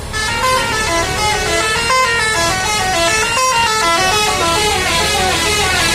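Indonesian bus telolet horn, a multi-tone musical air horn, playing a fast melody of short stepped notes. It starts suddenly right at the beginning and runs on without a break.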